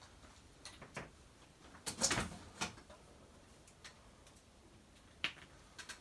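Scattered clicks and knocks from a power plug being handled and plugged in, loudest in a short cluster about two seconds in. The ceiling fan does not start, so no motor is heard.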